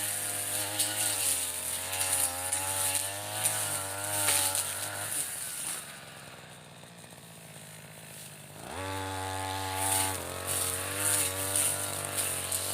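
Brush cutter's Mitsubishi TU33 two-stroke engine running at full throttle under a wavering cutting load. About five seconds in it drops back to idle, then revs sharply up again just under nine seconds in and carries on cutting.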